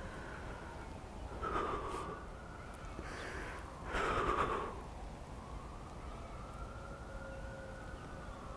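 A young man crying, with two sharp gasping sobs, one about a second and a half in and a louder one about four seconds in. A faint siren wails slowly up and down in the distance.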